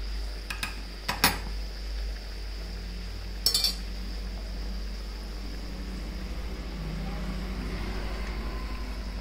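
A perforated metal slotted spoon clinks against the metal kadai several times in the first two seconds, with another sharp double clink about three and a half seconds in, over the steady sizzle of oil around a maida dough basket deep-frying.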